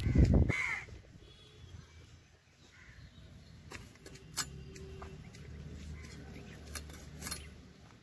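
Heavy low thumping in the first second, then a few short sharp knocks, with a bird calling briefly near the start.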